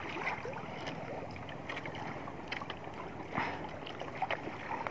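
Sea water lapping against a small outrigger boat, with wind and a few faint clicks.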